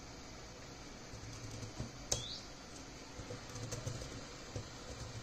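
A few faint computer keyboard keystrokes, the loudest about two seconds in, followed at once by a brief falling chirp.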